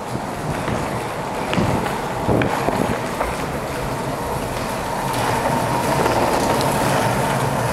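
Longboard wheels rolling over a concrete parking-garage floor, a steady rumble with a few sharp clicks in the first few seconds.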